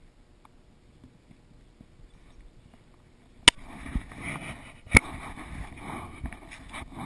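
A wolf-dog nosing at a camera on a hay bale: faint at first, then about halfway through two sharp knocks a second and a half apart as its muzzle bumps the camera, with rubbing and rustling against the microphone between and after.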